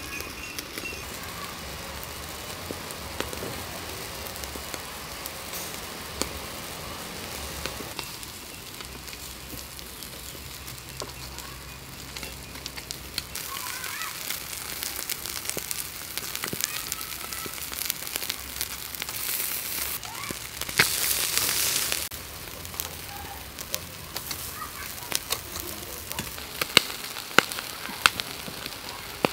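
Whole catfish grilling on a wire rack over glowing charcoal: steady sizzling with crackles and pops, a louder rush of sizzle about two-thirds of the way through and a few sharp pops near the end.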